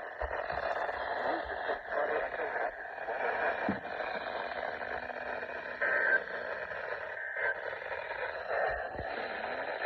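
Radio receiver hissing with static after an Emergency Alert System marine warning, the sound thin and cut off above about 2 kHz. Two brief tone chirps about a second and a half apart come near the middle.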